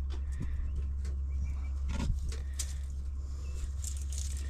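Light clicks and knocks of hands working at a carburetor spacer on an old car, trying its seized nuts, over a steady low rumble of wind on the microphone. The strongest knock comes about two seconds in.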